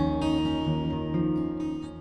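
Background music of held, plucked-string notes, like an acoustic guitar, slowly fading toward the end.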